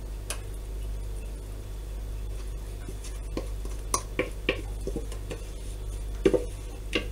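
A utensil scraping and tapping against a stainless steel mixing bowl as thick cake batter is poured and scraped out into a metal baking tin, with scattered sharp clicks, the clearest a few seconds in and again near the end, over a steady low hum.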